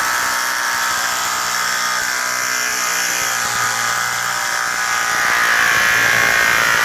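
A power tool's motor running with a steady, high whine, getting a little louder near the end.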